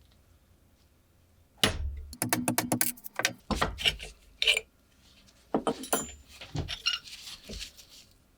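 Small metal lighter parts clinking against each other and a hard surface: a quick run of clicks starting about one and a half seconds in, then scattered clinks for several more seconds.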